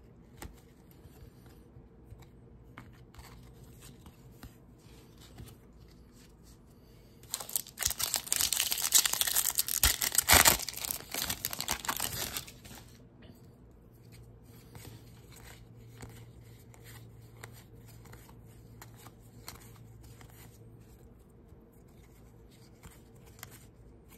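A foil Topps baseball card pack wrapper being torn open and crinkled, a loud crackling tear lasting about five seconds in the middle. Before and after, cards are handled with faint soft clicks and slides.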